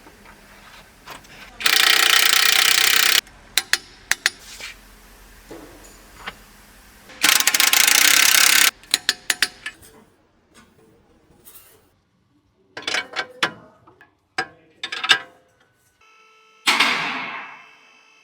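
Workshop tool work on a car's front differential and suspension: two loud bursts of steady rushing noise, each about a second and a half long, followed by many sharp clicks and knocks of metal tools and parts, with a last burst of noise near the end that fades away.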